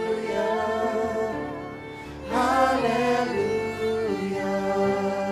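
Worship song: sustained, wavering sung notes over held string and keyboard chords, with a new phrase coming in a little after two seconds.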